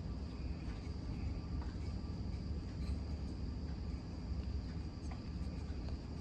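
Steady trilling of crickets over a low steady hum, with a few faint scattered clicks.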